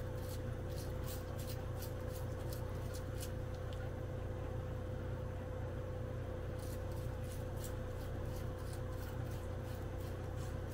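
Steady low hum of room background with a scatter of faint light clicks, which stop for a couple of seconds around the middle and then resume.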